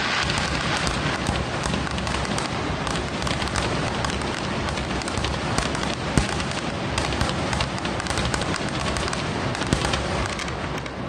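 Fireworks display going off in rapid succession: a dense, continuous crackle over a low rumble of bursting shells, with a sharper bang about six seconds in and another near the end.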